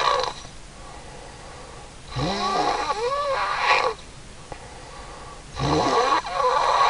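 A woman snoring in a regular rhythm: one snore about two seconds in and another starting near the end, each about a second and a half long with a wavering pitch, and quiet breathing between them.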